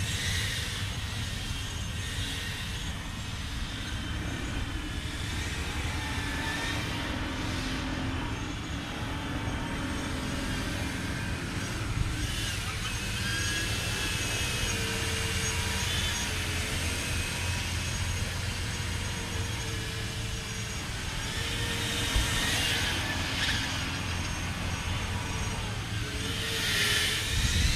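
Five-inch FPV quadcopter with 2306 brushless motors spinning doubled-up 8-blade ducted props (64 blades in all) on 4S: a whirring whine that rises and falls with the throttle, with louder throttle bursts twice near the end.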